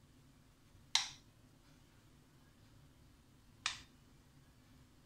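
A metal spoon clinking against glass twice, about a second in and again near the end, as béchamel is scooped and spooned out of a glass jug.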